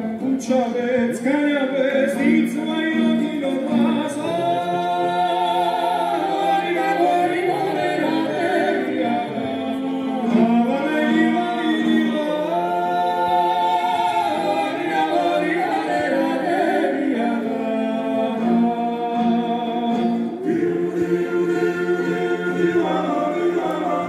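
Georgian polyphonic folk singing of a Megrelian song: several voices over a steady held drone, the upper lines moving in long phrases.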